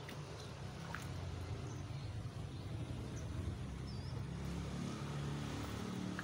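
A low, steady engine drone, with a few faint high bird chirps over it.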